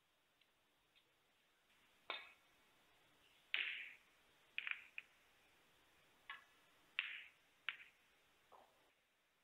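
Snooker balls clicking sharply against one another and off the cushions during a shot, about eight separate clacks spread irregularly, each with a short ring. Two of them, one near the middle and one later on, are the loudest.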